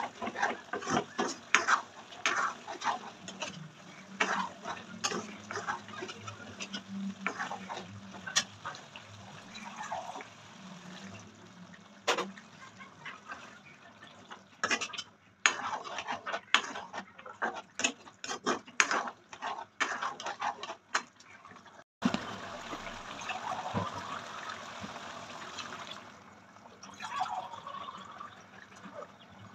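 Steel spoon clinking and scraping against a metal kadai as chicken curry is stirred, with the liquid gravy sloshing. There are repeated sharp clicks of the spoon, and the sound breaks off abruptly about two-thirds of the way through.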